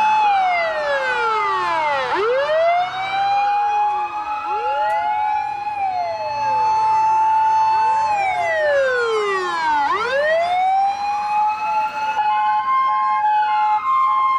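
Emergency vehicle siren wailing: a held tone that twice sweeps down and climbs back up, with other siren glides overlapping it. Near the end a pulsing two-tone hi-lo pattern joins in.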